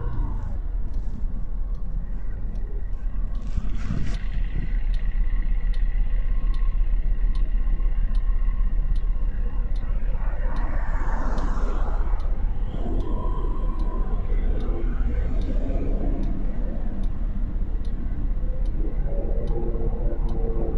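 Motorcycle engine idling steadily while stopped in city traffic, with a low rumble from the surrounding cars' engines. A bus engine grows louder near the end as it approaches.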